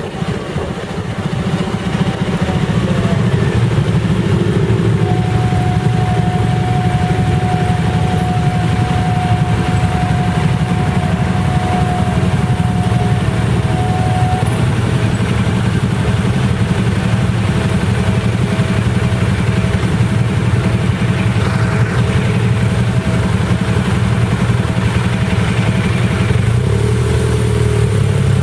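Motorcycle engines idling steadily at close range, the rider's Honda CB1300 among them, after a slow roll-up at the start. A faint high steady tone runs in the middle, then a faint pulsing tone in the second half.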